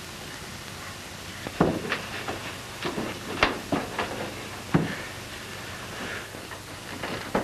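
Punches in a film fistfight: about ten sharp, irregularly spaced blows starting about a second and a half in, over faint soundtrack hiss.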